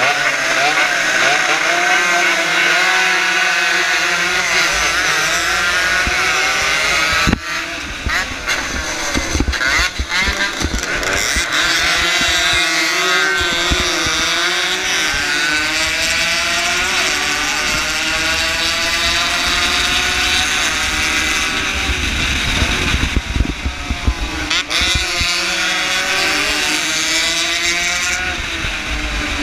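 Small 115cc racing motorcycle engine at high revs, its pitch repeatedly climbing and dropping with throttle and gear changes, heard from on the bike. Wind buffets the microphone at speed.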